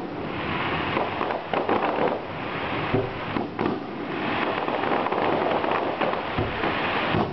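Aerial fireworks exploding: a dense crackling like rain, broken by several sharp bangs.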